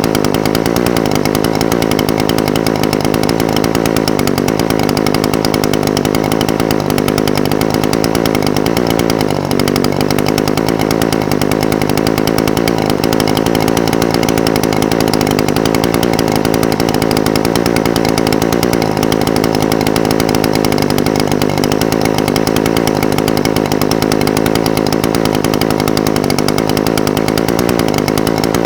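Echo SRM-420TES brush cutter's two-stroke engine idling steadily, its pitch wavering slightly now and then.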